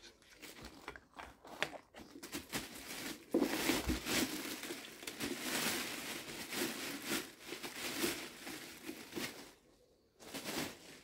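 Clear plastic packaging bag crinkling and rustling as a pressure washer is pulled out of it: a few light crackles at first, then a long stretch of dense crinkling, and one short final burst near the end.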